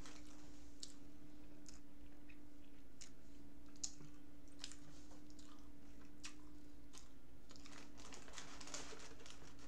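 Scattered soft clicks, with a longer stretch of rustling about eight seconds in, over a steady low hum.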